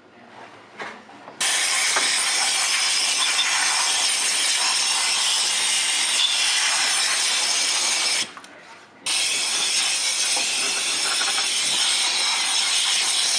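Power ratchet wrench running in two long spells, about seven seconds and then about four seconds with a short break between, undoing fasteners to take off the throttle body.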